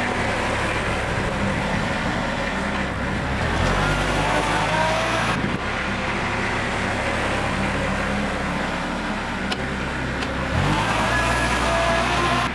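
Loader tractor's engine running steadily under load while pushing snow with a bucket-mounted plow blade, its pitch shifting a couple of times as the throttle or load changes.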